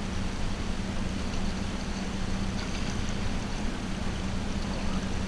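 A boat's outboard motor running steadily at low speed, a constant hum, over a low rumble of wind and water noise.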